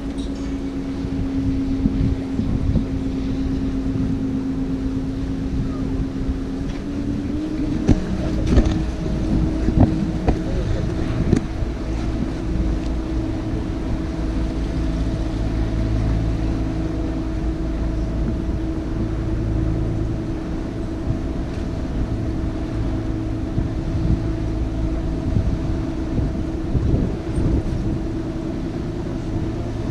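Canal boat's engine running steadily, its hum stepping up in pitch about seven seconds in as it speeds up. A few brief knocks come shortly after.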